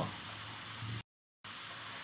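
Room tone: a steady faint microphone hiss between spoken sentences, cut by a brief dropout to dead silence about a second in, then resuming.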